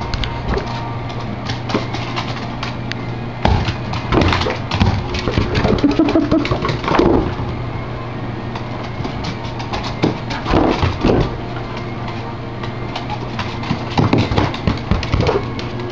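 A small dog scrambles after a bouncing balloon on a hardwood floor: a scatter of quick clicks and taps from claws and balloon hits, with a few short squeaks, over a steady low hum.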